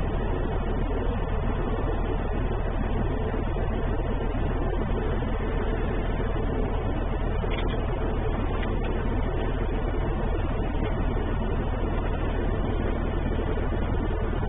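Steady low mechanical hum from a running machine, even in level with no distinct events.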